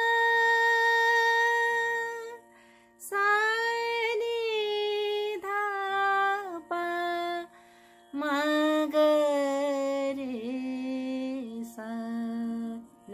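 A woman's voice singing the descending scale of Kafi thaat, from upper Sa downward, with flat (komal) Ga and Ni. Each note is held for about one to two seconds with short breaks between them, over a steady drone.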